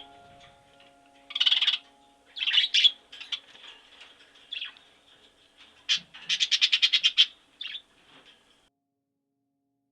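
Bird calls: several harsh, scratchy chirps, then a fast rattling chatter of about ten notes in a second, then one more short call.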